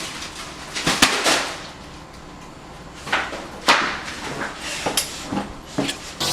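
A string of irregular knocks and thumps with rustling between them.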